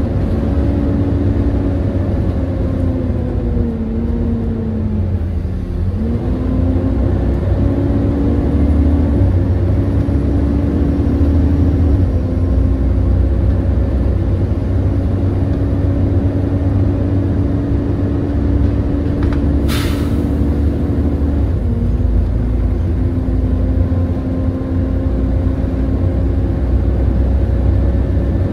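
Volvo B7TL double-decker bus's six-cylinder diesel engine and drivetrain heard from on board. The pitch sinks over the first few seconds as the bus slows, rises again as it pulls away, then holds steady. A brief sharp hiss comes about twenty seconds in.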